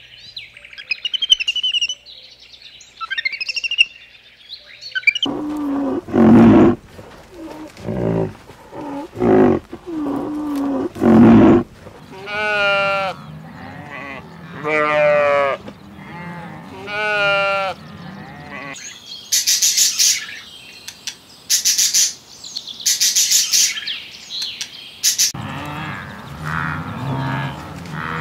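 A string of animal calls: high twittering chirps at first, then short low calls, then three wavering bleats from a ewe and lamb, followed by a few sharp high-pitched chirps.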